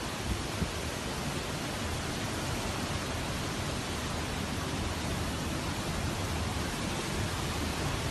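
Hurricane-force wind and heavy rain: a steady, even rushing noise.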